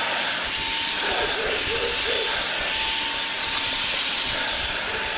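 Cordless stick vacuum cleaner running steadily: a constant high motor whine at one pitch over a loud rush of suction air.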